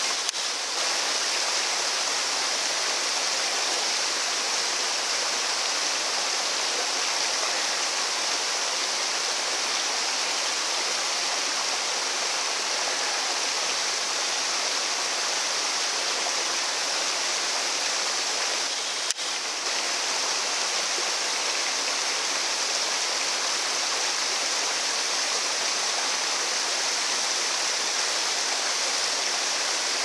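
Small waterfall spilling down granite ledges into a pool: a steady rush of falling water. One brief click about two-thirds of the way through.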